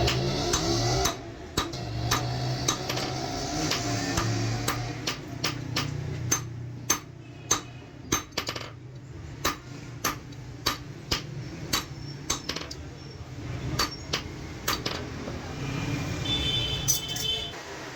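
Hammer striking metal again and again at an uneven pace, each blow a sharp clank, over a steady low hum.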